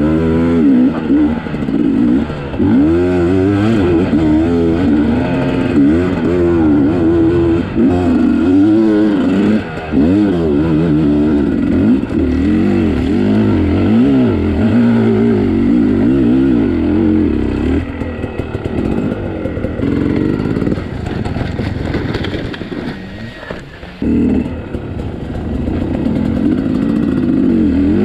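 Sherco 250 SE Factory two-stroke dirt bike engine revving up and down hard under load on a climb, its pitch rising and falling with the throttle. About two-thirds of the way through it drops off for several seconds to a lower, rougher running, then revs up again near the end.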